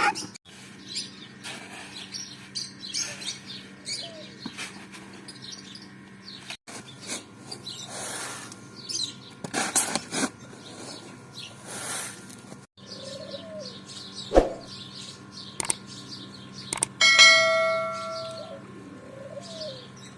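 Birds chirping repeatedly over a faint steady hum. Near the end comes one sudden ringing tone that fades out over about a second.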